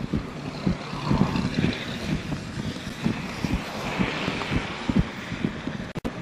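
Wind buffeting the microphone in irregular gusts over the steady hiss of a vehicle's tyres on a wet road. The sound cuts out briefly near the end.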